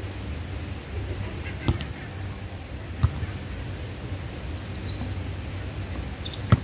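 Volleyball being struck by players' hands and forearms, three sharp slaps: about a second and a half in, about three seconds in, and just before the end. A steady low rumble sits under them.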